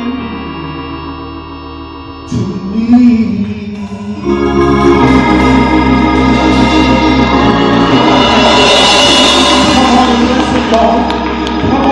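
Church praise-band music led by held organ chords, swelling fuller and louder about four seconds in.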